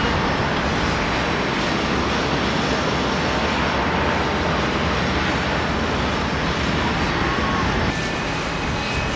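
Jet airliner engines running close by: a loud, steady rushing noise that changes slightly near the end.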